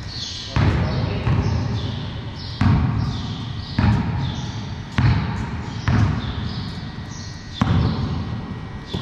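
A basketball bouncing on a concrete floor in a slow, uneven dribble of about seven bounces. Each thud echoes and dies away slowly in the large, bare hall.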